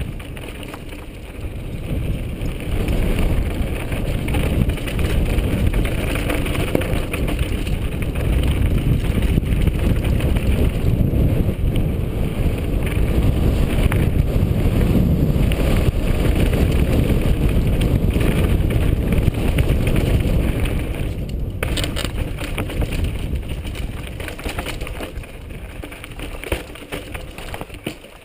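Wind rumbling heavily over the microphone of a camera mounted on a mountain bike racing down a rocky gravel trail, with the rattle of the bike and tyres over loose stones. There are a couple of sharp knocks a little past two-thirds of the way through, and the noise eases near the end.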